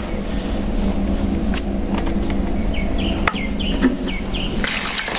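Plastic measuring jug and bottle handled in a metal tray: a few sharp clicks and taps over a steady low hum. About three seconds in there is a quick run of five short high chirps, and near the end a brief rustling hiss.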